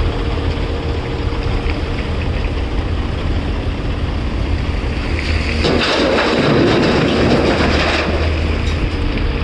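Caterpillar 336 excavator's diesel engine running steadily under load. About halfway through, a rush of rock and dirt tipped into a dump truck's bed lasts a couple of seconds and stops sharply.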